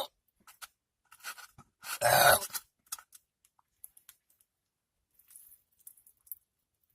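A person eating, with faint wet chewing clicks, and one loud burp about two seconds in.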